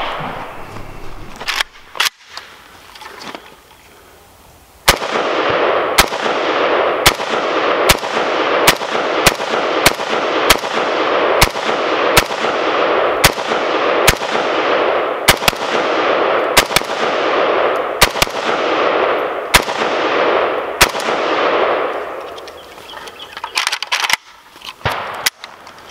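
Zastava AK-pattern rifle fired semi-automatically: a string of about twenty shots at roughly one a second, over a steady rushing noise, with a couple of sharp clicks before the firing starts.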